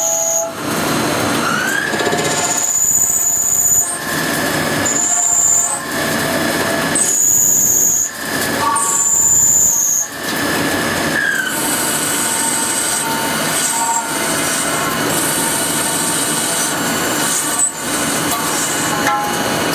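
DMTG CNC lathe running a machining cycle: steady loud machine noise with high whining tones that start and stop every second or two as the cuts change. A motor whine rises and settles a couple of times.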